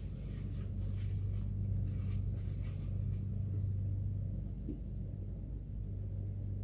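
Blue paper towel rustling and rubbing as metal gun parts are wiped and handled, over a steady low hum that drops away about four seconds in.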